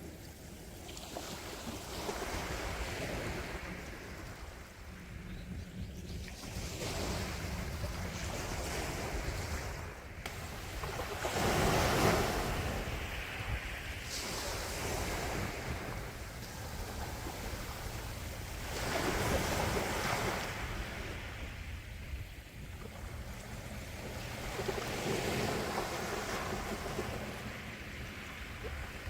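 Calm sea waves rolling in and washing back, the wash swelling and ebbing every few seconds, with the biggest wave about twelve seconds in.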